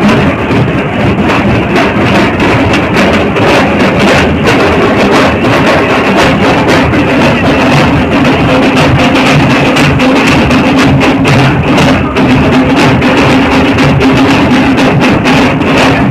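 Loud drumming on large double-headed barrel drums (dhol) beaten with sticks, a dense run of strokes over a crowd's din.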